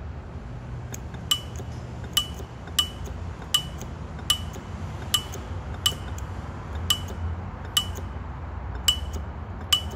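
Car A/C compressor's electromagnetic clutch clicking as its coil is switched on and off from a jump-start supply: about eleven sharp metallic clicks, roughly one a second, over a low steady hum. The clutch pulling in shows the coil and compressor are working.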